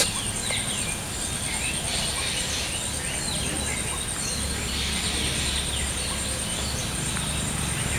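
Woodland ambience: small birds calling with many short chirps over a steady low background rumble.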